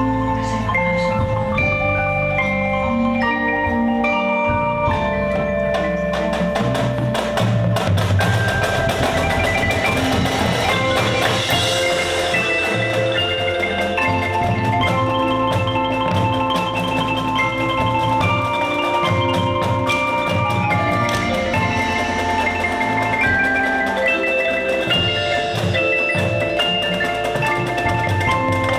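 Show band music carried by melodic mallet percussion, marimba- and glockenspiel-like notes, over drums and low held tones, with a steady stream of struck percussion.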